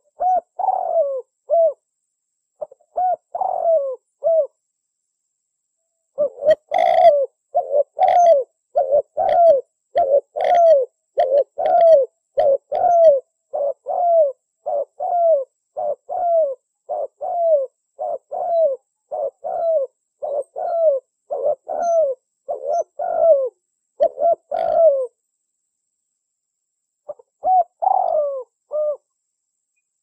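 Spotted dove (tekukur) cooing: a couple of short phrases of a few coos, then a long run of evenly repeated coos at about three every two seconds that stops about twenty-five seconds in, and one more short phrase near the end.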